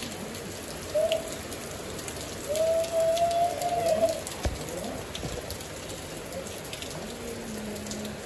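Steady rain falling. Over it, a long pitched call sounds twice: briefly about a second in, then longer, wavering slightly, from about two and a half to four seconds.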